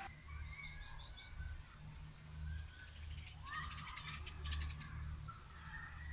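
Outdoor birds calling: a quick series of short high chirps near the start, then a harsh, raspy stuttering call around the middle, over a steady low rumble.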